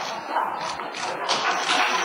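Press cameras' shutters clicking in quick, irregular succession as several photographers shoot at once.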